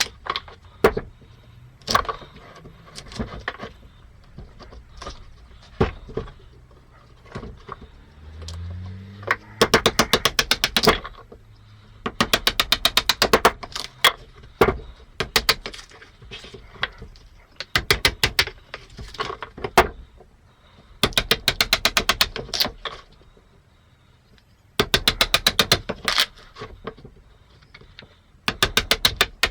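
Parkside PDM 600 A1 wood lathe turning a black locust blank: the motor hums as it spins up, then the turning tool clatters against the spinning wood in repeated bursts of rapid, even knocks, typical of cutting a rough, out-of-round blank. Scattered sharp clicks of tool and wood come between the bursts.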